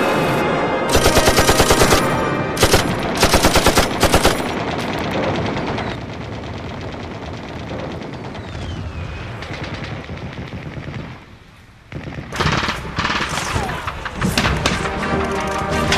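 Machine-gun fire in rapid bursts of about a second each, several in the first four seconds, then a quieter stretch of scattered shots, dropping away briefly before more firing resumes near the end.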